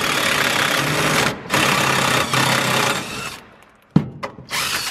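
Cordless power tool, most likely an impact driver, running hard on a 10 mm bolt in two long runs with a short break between, then a sharp click and one brief burst near the end.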